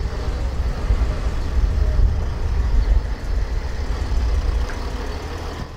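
Car engine idling close by: a low, uneven rumble that stops suddenly near the end.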